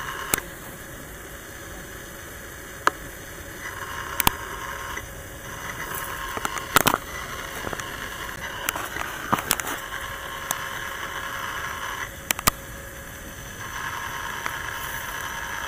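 Steady outdoor background hiss with a faint hum that drops out and returns, broken by a handful of sharp clicks and crackles spread irregularly through it.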